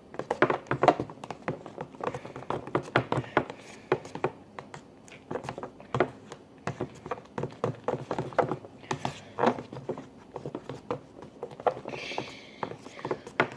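A fork stirring clear glue and shaving cream in a container, making irregular quick clicks and taps as it knocks against the container.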